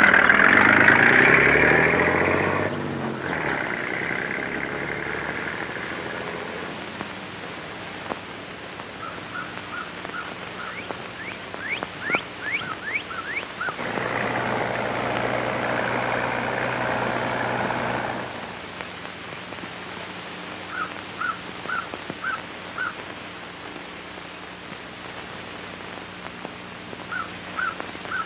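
A motor vehicle driving off, its engine noise fading away over the first several seconds, then birds chirping in short, quick runs of notes. A few seconds of steady engine noise come back midway.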